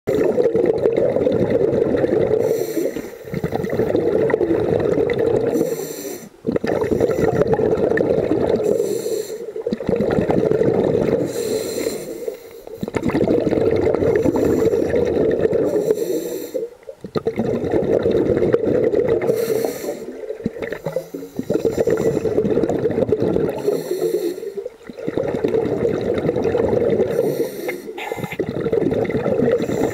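Scuba regulator breathing heard underwater through a camera's waterproof housing: a short high hiss of inhaling, then two to three seconds of bubbling from the exhale, repeating every three to four seconds.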